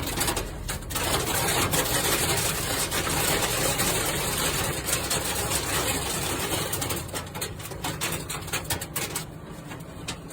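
Hail and heavy rain pelting down in a dense, rapid rattle of impacts, easing a little near the end.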